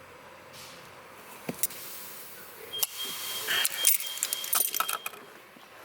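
Small metal parts clicking and rattling as a pliers-crimped wiring connector is handled, with the clatter busiest in the second half and a faint high steady tone over about two seconds.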